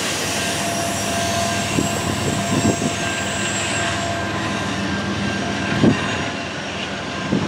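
Rail passenger cars at the tail of a long freight train rolling away down the track: steady wheel-on-rail rumble with a few faint thin tones. A handful of short knocks come about two, three, six and seven seconds in.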